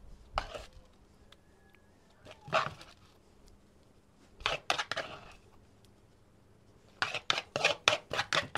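Metal tongs scraping and clinking against a clay bowl while scooping out tamale filling: a few scattered scrapes, then a quick run of taps near the end.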